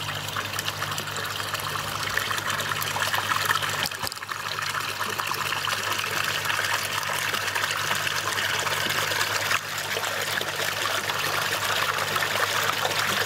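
Water jetting from a pond pump's outlet pipe and splashing onto the pond surface, growing stronger as the pump ramps up to full speed. A low steady hum runs underneath.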